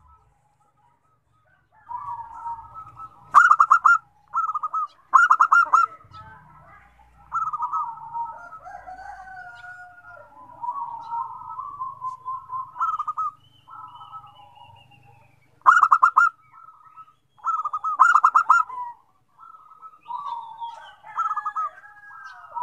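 Zebra doves (perkutut) cooing: rapid trilled coos repeat every few seconds, with overlapping softer warbling coos between them, as more than one bird calls at once. The calls begin about two seconds in.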